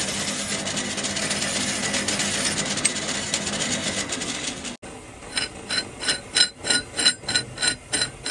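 Production machinery running with a dense, steady clatter, which breaks off suddenly about five seconds in. After the break comes a regular run of sharp mechanical clicks, about four a second, each with a short ringing tone.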